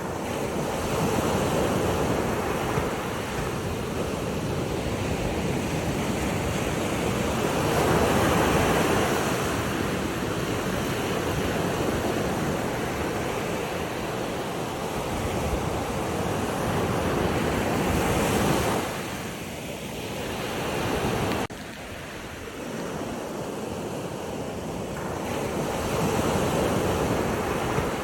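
Ocean surf: waves washing in and out, the rush swelling and easing every few seconds, with a sudden drop in level about three-quarters of the way through.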